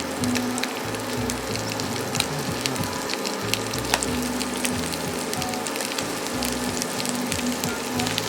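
Pork sausages frying in a pan: a steady sizzle with frequent sharp crackles of spitting fat.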